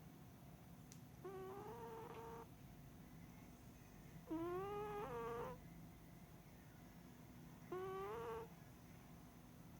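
Cat snoring in its sleep: three pitched, whistly snores, each about a second long and rising in pitch, at an even rhythm of about one every three seconds.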